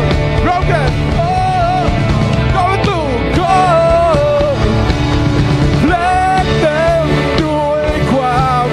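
Loud live rock music from a church band: a lead voice sings a wavering melody over pounding drums and bass.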